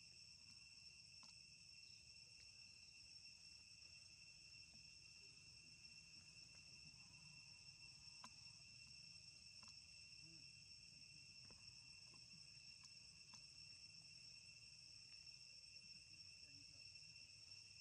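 Faint, steady insect chorus: a continuous high shrill at two pitches, with a few soft ticks scattered through.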